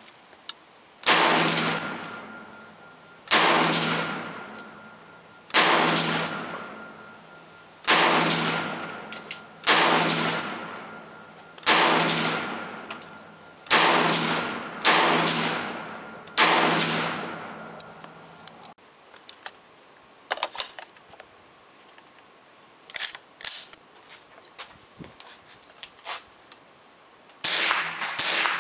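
Armalite M-15A2 semi-automatic 5.56 mm rifle firing nine shots, about one every two seconds. Each sharp report is followed by an echo that dies away over a second or two.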